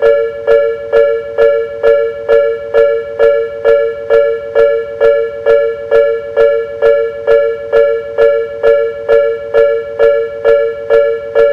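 Japanese railway level-crossing warning bell ringing steadily, a clanging chime struck about twice a second on two alternating tones.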